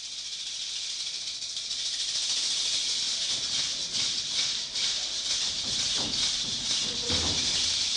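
Music opening with a shaken rattle or maraca, a dense hiss that swells louder and pulses, joined by deep drum beats about six seconds in.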